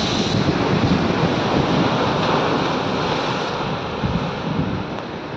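Rough, storm-driven sea surf breaking and washing over a rocky shore, a continuous rushing wash of waves.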